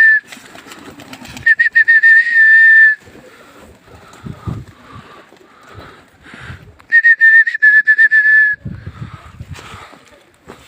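Loud shrill whistling, twice, each a quick warble that settles into one held high note for about a second and a half: a pigeon keeper whistling to drive his flock up and keep it flying.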